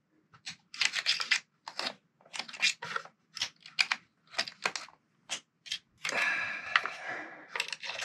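Small metal hand tools clicking and ticking irregularly against an RC truck's motor mount and screws as they are tightened with a thin 7 mm wrench. A longer scraping rustle comes about six seconds in.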